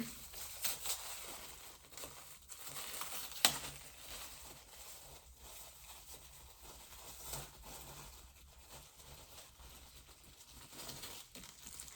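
Quiet eating sounds, with the soft crinkle and rustle of takeout food packaging and small irregular clicks, one sharper click about three and a half seconds in.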